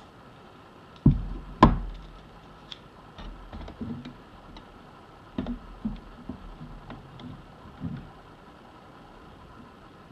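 Hands working a sewing machine without it stitching: two sharp knocks about a second in, then a string of lighter taps and clicks as the presser-foot lever is worked and fabric is laid on the machine bed.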